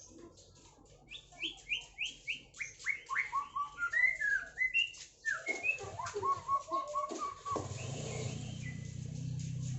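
White-rumped shama singing a fast run of clear whistled notes: quick falling slurs repeated several times, then varied phrases, then a string of lower repeated notes, in the song style of the orange-headed thrush. A steady low hum begins about three-quarters of the way in as the song stops.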